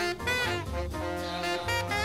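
Instrumental background music: a lead melody with vibrato over a bass line that steps from note to note.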